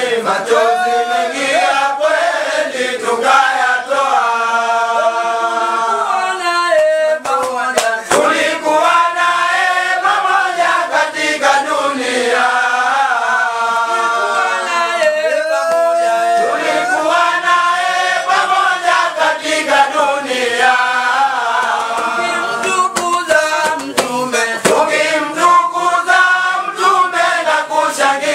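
A group of men chanting a Swahili Islamic dhikr together without instruments, in long held notes that rise and fall.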